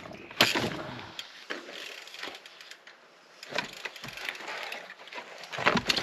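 Scraping and crunching on loose volcanic rock and stone steps as a mountain bike is manoeuvred on a steep hairpin, in three bursts: near the start, about two thirds in, and at the end.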